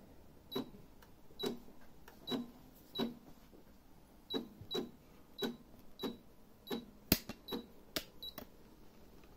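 Computerized sewing machine's control buttons being pressed one after another as a stitch is set: about a dozen short high beeps, each with a click, at uneven gaps of half a second to a second. There is one sharper click about two-thirds through.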